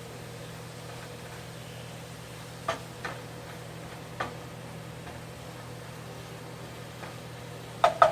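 Kitchen cookware clicking and knocking: a few single light clicks, then a quick run of sharp knocks starting near the end, like a utensil rapped against a frying pan. Under them is a steady low hum with a faint hiss.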